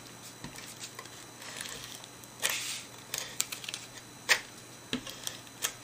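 Paper and cardstock being handled and pressed onto a card front: a few scattered light taps and short rustles.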